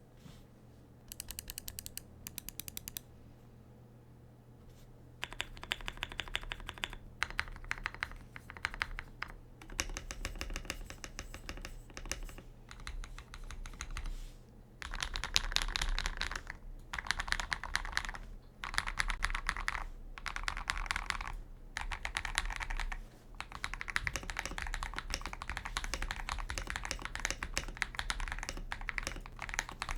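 Typing on an Akko x Epomaker 5075B Plus mechanical keyboard with re-lubed Akko Wine Red linear switches, a polycarbonate plate and a tape mod, a thocky keystroke sound with the loud clack at the end of each stroke lubed away. It opens with a short run of evenly spaced keystrokes and a brief quiet spell, then bursts of fast typing with short pauses between them.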